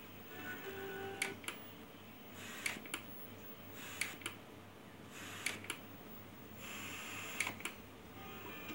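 Front-panel buttons on a Sony CRT television being pressed over and over. Each press gives a pair of quick clicks, and there are about five presses a second or so apart.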